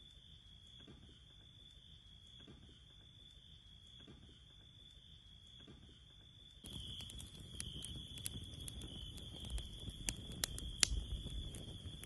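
Steady high-pitched insect buzz. A little over halfway through, a louder low rumble starts suddenly, with a run of sharp, irregular clicks and knocks.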